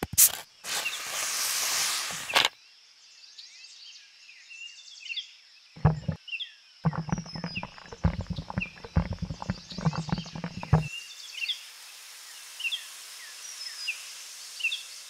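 A plastic Sprite bottle cap twisted open with a click and about two seconds of hiss as the carbonation escapes. About six seconds in, soda splashes and drips onto the speaker's hard top in a rapid run of small splatters for about four seconds. Birds chirp throughout.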